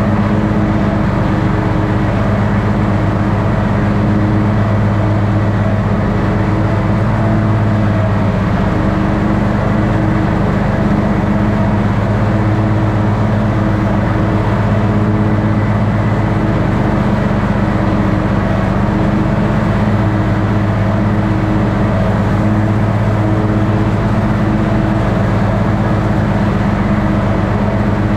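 Toro mower's engine running steadily while mowing grass, a constant drone that swells and fades slightly every few seconds.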